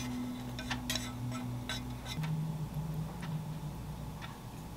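Light clicks and taps of wooden chopsticks and a square nonstick pan against a white ceramic bowl as scrambled egg is pushed out of the pan. A steady low hum runs underneath and shifts to a higher pitch about halfway through.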